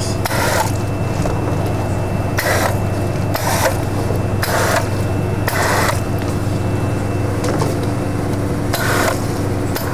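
Self-serve soda fountain dispensing several different drinks into one cup in short spurts, about six over ten seconds, over the steady hum of the machine.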